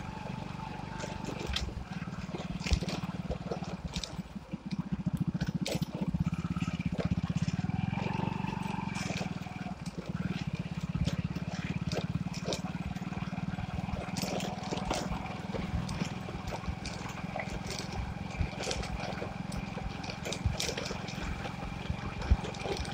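Motorcycle engine running at low road speed, with scattered knocks and rattles as the bike rides over a rutted dirt track. The engine sound swells for a few seconds about a third of the way in.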